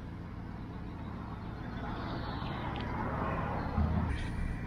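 Outdoor traffic noise: a passing vehicle swells and fades in the middle, over a steady low hum.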